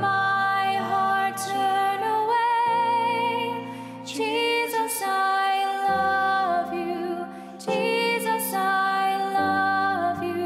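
A hymn sung by a solo voice with vibrato, held notes over sustained keyboard chords that change every few seconds.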